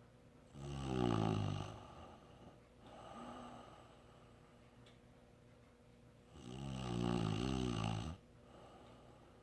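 Snoring: two loud, rattling snores about six seconds apart, each lasting a second and a half or so, with a softer breath between them.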